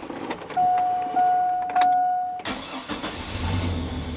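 A car's steady electronic warning tone sounds for about two seconds with a couple of clicks as the ignition is switched on. Then the starter cranks briefly and the engine catches and settles into a steady idle, its first start after a fresh change to 5W-30 high-mileage oil.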